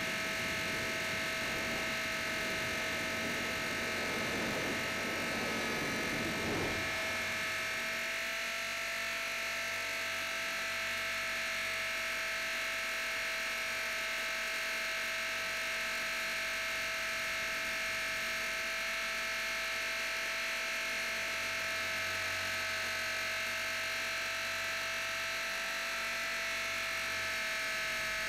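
Blade 450 X RC helicopter's electric motor and rotor head running at a steady, high-pitched whine, heard close up from a camera mounted on the helicopter. Rushing air noise rides along for the first seven seconds or so, then drops away, leaving the even whine.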